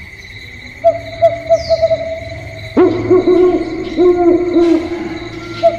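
Spotted doves cooing: a run of short, repeated coo notes, with a second, lower-pitched voice joining about three seconds in so the calls overlap.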